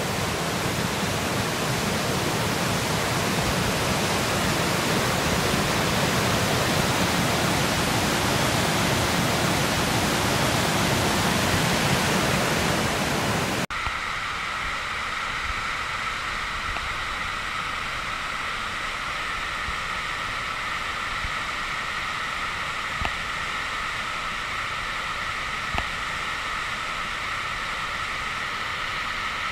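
Lower Wallace Falls rushing steadily, a full, even sound of cascading water. About halfway in, it cuts suddenly to a quieter, thinner rush from a waterfall farther off.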